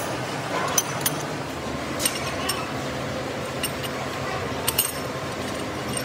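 Irregular sharp metal clinks, about six of them, as a steel hand tool and the hoist chain knock against the steel jaws of a stopped vertical lathe's chuck, over a steady workshop hum.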